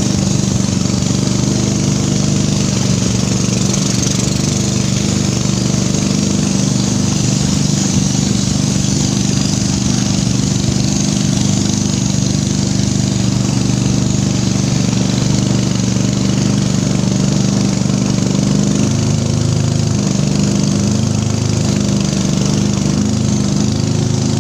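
Small boat engine running steadily, pushing the boat upriver: an even, low, droning note. The engine's note changes slightly about three-quarters of the way through.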